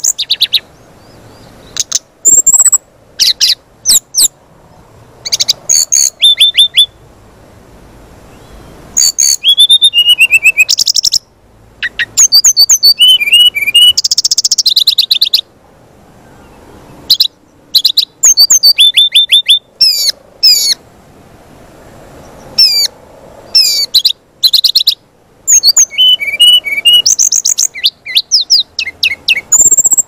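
Brown-chested jungle flycatcher (sikatan rimba dada coklat) singing: clusters of quick, high chirps and whistled notes, repeated again and again with short pauses between.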